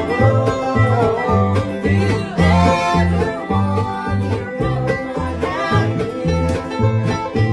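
Bluegrass jam: a prewar Gibson banjo picking quick rolls over strummed acoustic guitar, with an upright bass plucking a steady two-beat that alternates between two low notes about twice a second.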